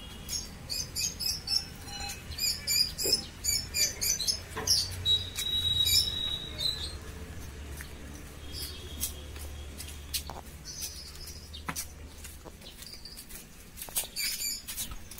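Small birds chirping in quick clusters of short high notes, with one longer held whistle-like note partway through, over a low steady rumble.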